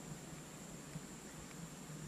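Faint steady hiss with a thin high whine over it and no distinct event.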